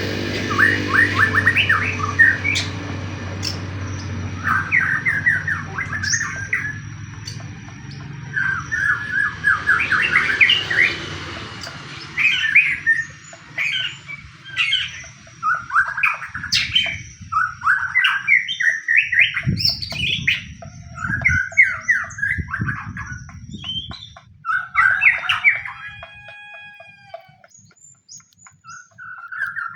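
White-rumped shama (murai batu) singing in fighting mode: quick bursts of rapid chattering notes, a new phrase every second or two, with a few long clear whistles late on. A low hum sits underneath for roughly the first dozen seconds.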